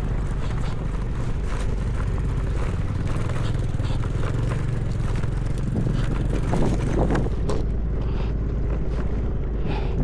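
Motorcycle engine running steadily while riding over a rough, stony off-road track, with scattered knocks and rattles from the bike bouncing over the rocks.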